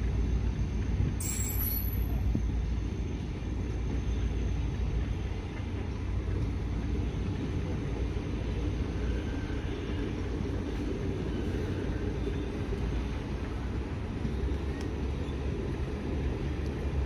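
Passenger coaches of a slow-moving express train rolling past on the track, a steady low rumble.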